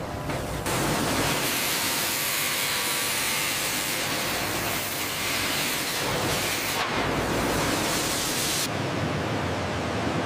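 A steady, loud hiss of noise with no pitch, starting just under a second in; its highest part drops away about nine seconds in.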